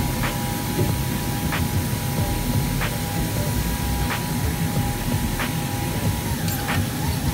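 FK Group Universal 8 automatic fabric cutter running while it cuts a stack of coated fabric: a steady low machine noise with a held hum, and a light tick about every second and a quarter.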